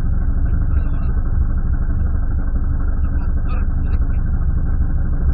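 Abarth 500 Assetto Corsa race car's engine idling steadily, heard from inside the cabin, with a few small clicks and rustles as the seat harness is adjusted.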